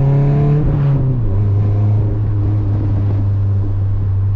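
Toyota Corolla's four-cylinder engine running under way. Its drone drops in pitch about a second in as the revs fall, then holds steady.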